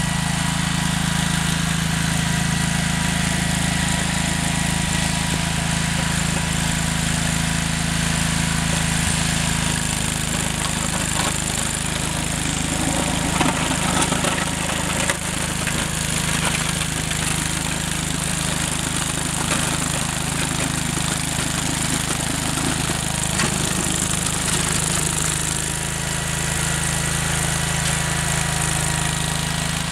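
Engine of a 1978 Wheel Horse C-101 garden tractor running steadily under load while the tractor pushes wet snow with its front plow blade. The sound grows rougher and more uneven for a stretch in the middle.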